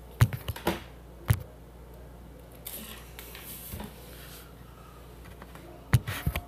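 A series of sharp knocks and clicks: several close together in the first second and a half, then a pair about six seconds in, over a faint steady hum.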